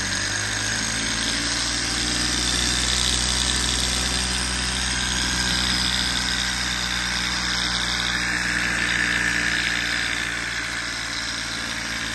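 Small high-speed hot-air Stirling engine with a horizontal flywheel, heated by an alcohol burner, running fast with a steady mechanical running noise.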